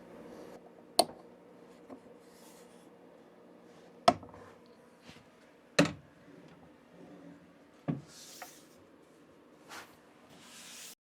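Wooden parts of a leg vise knocking and clunking as they are handled and fitted together: four sharp knocks spread a second or two apart, with lighter clicks and faint rubbing between.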